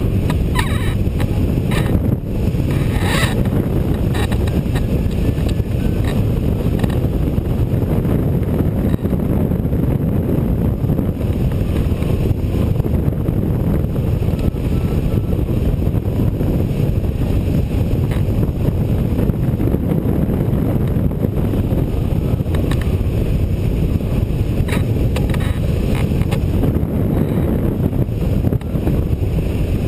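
Wind rushing over the camera microphone on a rigid-wing hang glider in flight: a steady, loud, low rushing noise, with a few brief faint ticks.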